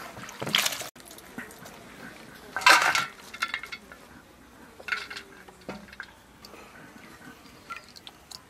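Shredded banana flower being washed by hand in an aluminium bowl of water and on a steel plate: water splashing and dripping, with short metal clinks and one brief clatter about three seconds in, the loudest sound.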